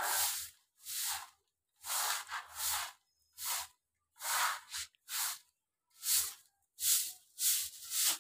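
Stiff grass broom sweeping a hard courtyard floor: about a dozen short swishes of the bristles in quick succession.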